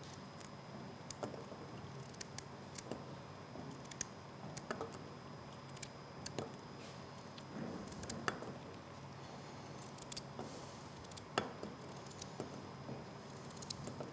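A small knife cutting pieces off a raw carrot held in the hand over a stainless steel pot, the pieces dropping into the pot: irregular light clicks and taps, roughly one a second.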